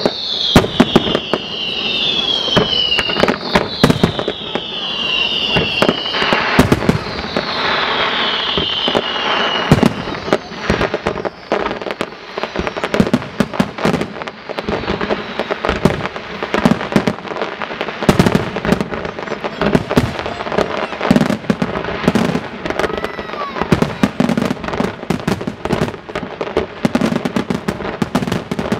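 Aerial fireworks display at full pace: rapid, overlapping bangs of bursting shells with crackle. In the first ten seconds a string of high whistles falls in pitch, one after another.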